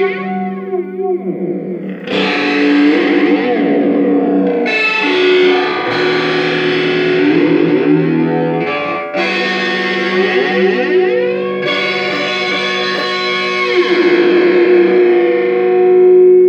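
Electric guitar chords played through a circuit-bent Joyo Classic Flanger pedal, each chord ringing on with a sweeping, whooshing flange. A fresh chord is struck every two to three seconds, and the sweep shifts as the pedal's knobs are turned.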